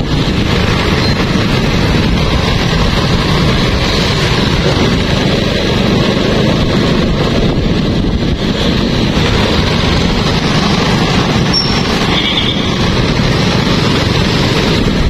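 Steady engine and road noise from riding through street traffic, a dense even rumble. A brief faint higher tone sounds about twelve seconds in.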